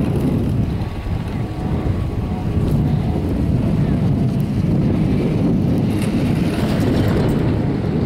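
Strong wind buffeting the microphone of a camera on an open, moving chairlift: a steady, low, rushing noise, with a few faint clicks about three and six seconds in.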